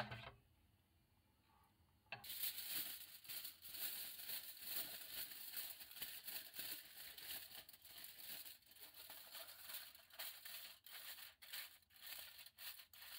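Aluminium foil crinkling and rustling as it is crumpled and pressed down by hand over a frying pan, a dense crackle starting suddenly about two seconds in. A short knock comes at the very start.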